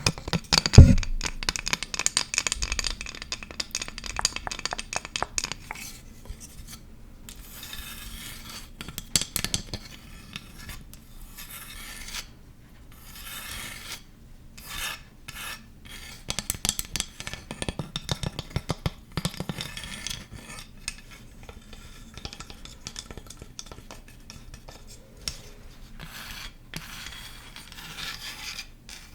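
Close-miked ASMR trigger sounds: rapid runs of sharp clicks mixed with rasping, rubbing scrapes, in quick bursts with short pauses between them.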